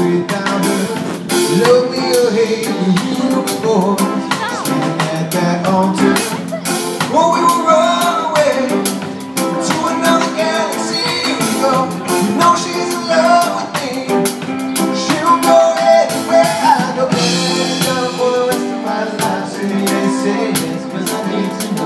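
Live band playing amplified through a PA: electric guitars and a drum kit with regular drum hits, and a voice singing a melody over them.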